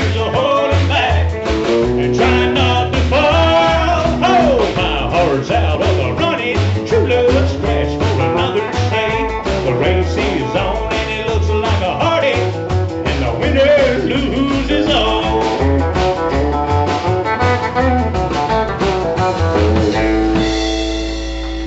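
A country band playing live through an instrumental break: a lead guitar plays bending notes over a steady bass and drum beat. About twenty seconds in, the band settles onto a long held chord.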